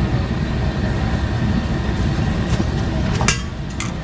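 Steady low rumble of street and traffic noise, with two sharp clicks a little over three seconds in.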